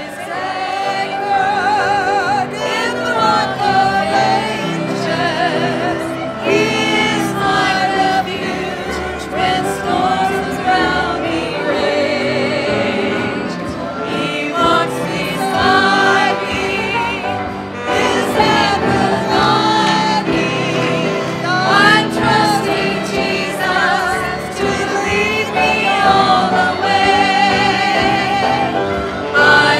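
Gospel music: a choir singing, the voices wavering with vibrato.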